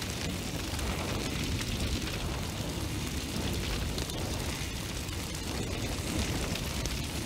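A steady low rumble with hiss over it, with no beat or melody.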